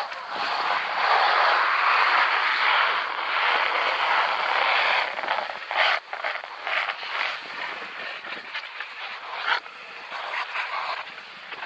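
Skis scraping and sliding over firm snow on a steep descent: one long, loud scrape for the first few seconds, then shorter, uneven scrapes with brief breaks.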